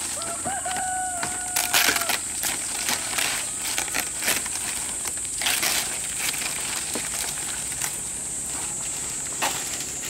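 Dry and fresh fan-palm fronds rustling and crackling as they are handled and laid as roof thatch, with irregular sharp crackles, the loudest about two seconds in. A steady high-pitched whine runs underneath, and a short held whistle-like tone sounds in the first two seconds.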